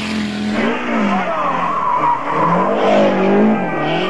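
Rally car engine at high revs, its pitch dropping and climbing again several times as it shifts and lifts off between bursts of throttle.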